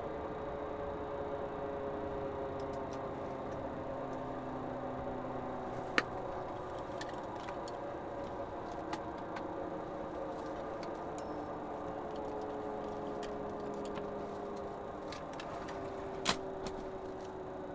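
Helicopter running steadily, its whine made of several tones that drift slowly down in pitch. Two sharp clicks cut through, one about six seconds in and a louder one near the end.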